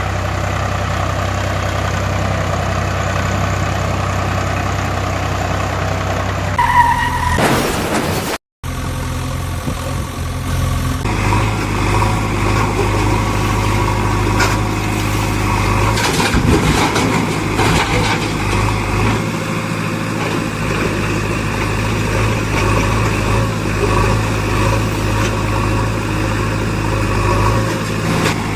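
Steady engine running sound, broken by edits: the tone changes about a quarter of the way in, cuts out completely for a moment, and then goes on steadily at a different pitch.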